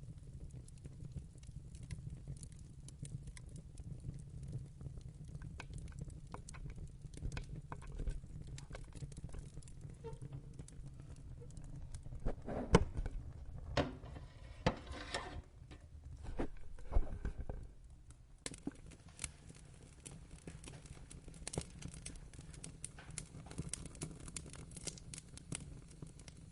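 Wood fire crackling, with scattered sharp pops over a steady low rumble of flames. About halfway through comes a denser flurry of louder pops and crackles.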